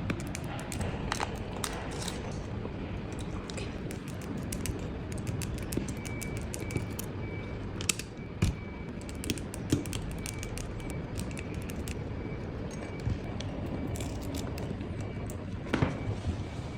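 Small clicks, taps and scrapes over a steady low background noise, with a few louder knocks and a faint, high, pulsing tone from about six seconds in.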